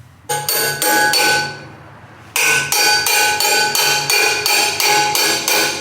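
Rapid hammer blows on a steel wrench welded to a seized truck-bed bolt, ringing metallic with every strike, about three blows a second: a short run, a pause, then a longer run from about two seconds in. It is the sound of someone trying to shock a stuck bolt loose.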